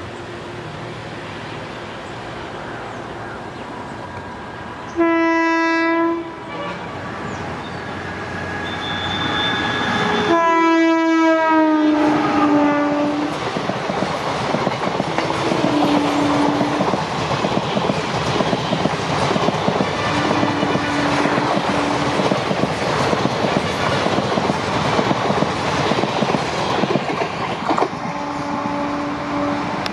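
WAP-1 electric locomotive sounding its horn twice: a blast about five seconds in, then a second about ten seconds in that falls in pitch as the locomotive passes. The passenger coaches then roll by close, with a steady rumble and clickety-clack of wheels over the rail joints.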